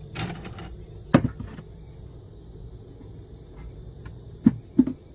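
Handling noise from a steel motorcycle brake disc being pulled off a cluttered shelf: a brief scrape at the start, a sharp knock about a second in, and a few more knocks near the end.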